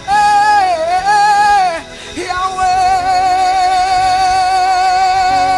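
A worship singer holds long, drawn-out notes over a soft musical backing: a phrase that dips and rises again, then one note held for over three seconds.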